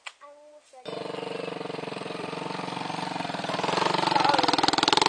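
Small youth ATV's single-cylinder engine running with a fast, even pulse, starting abruptly about a second in and revving up, louder and slightly higher, near the end.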